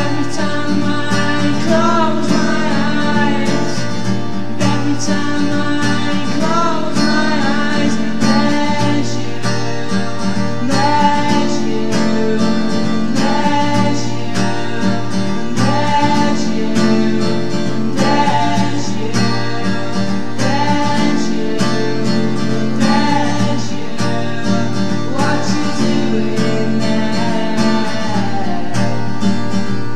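A song with strummed acoustic guitar and a sung melody over it, playing steadily.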